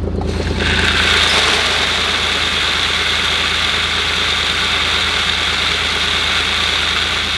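Grain pouring in a steady rush from a button-operated feed machine into a truck bed, starting about half a second in, over a steady low hum of the truck's engine idling.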